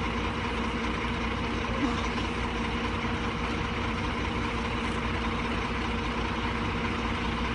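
A vehicle engine idling: a steady, unchanging hum with a few constant tones over a low rumble.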